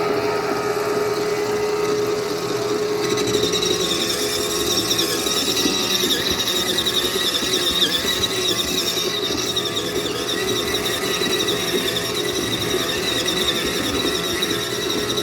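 The motor of a small 1.5 kg portable washing machine running steadily. About three seconds in, a high-pitched squealing whine joins it and carries on.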